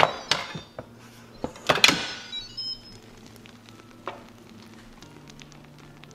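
Instant Pot pressure-cooker lid being turned and handled on the pot: a quick series of plastic clicks and knocks, the loudest about two seconds in with a short metallic ring, and one last click near the middle.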